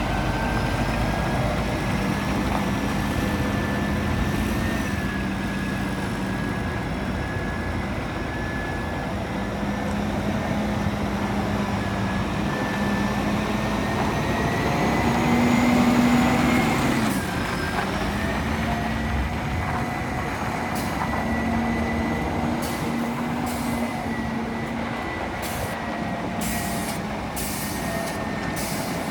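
Scania 420 truck's diesel engine running steadily. The revs rise a little around the middle and drop back suddenly. Near the end there are several short hisses.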